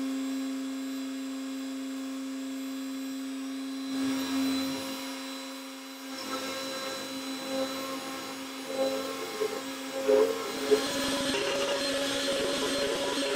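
X-Carve CNC router spindle running with a steady whine. About halfway through the sound turns rougher and noisier as the bit mills into the wood, and the cutting noise grows louder near the end.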